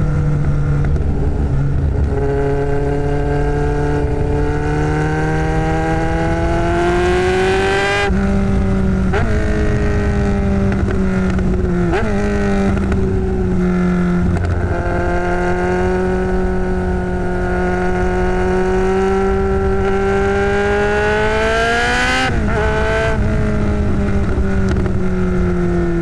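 Kawasaki Z1000's inline-four engine running loud through a MIVV Double Gun exhaust, whose short silencers hold only simple dB-killer constrictions, heard from the bike at road speed. The engine note holds steady and climbs slowly in pitch, with a few abrupt jumps and dips.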